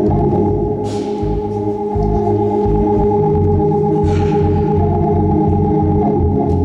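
Two-manual electronic organ playing held gospel chords over a moving bass line.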